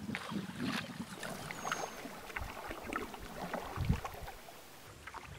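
Water splashing and dripping around a wooden dugout canoe being paddled on a river: many short irregular splashes, with a few dull knocks.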